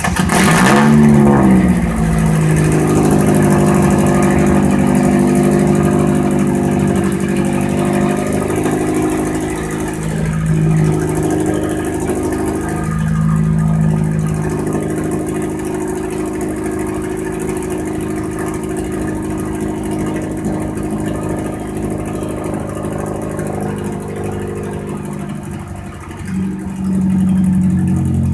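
Straight-piped exhaust of a Ford Ranger pickup: the engine starts and flares up right at the beginning, then settles into a steady, loud idle with a few swells and a brief rise near the end.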